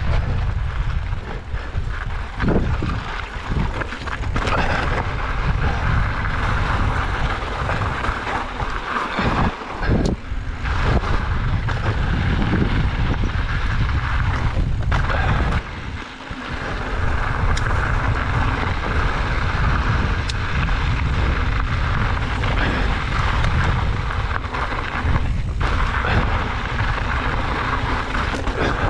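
Wind buffeting the microphone of a mountain bike rider on the move, with a heavy low rumble and tyre noise from the trail. Scattered sharp knocks as the bike rattles over rough ground.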